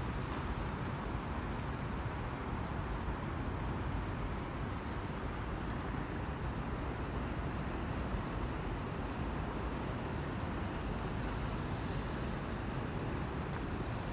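Steady outdoor background rumble of distant road traffic, with no distinct events.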